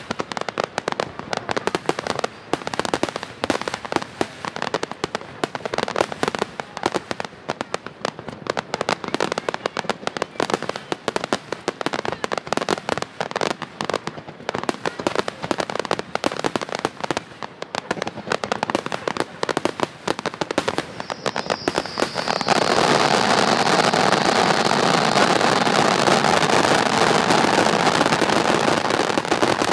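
Fireworks display: a dense, irregular string of bangs and crackles from bursting aerial shells. About three-quarters of the way through it suddenly grows louder into a continuous wall of crackling that holds to the end.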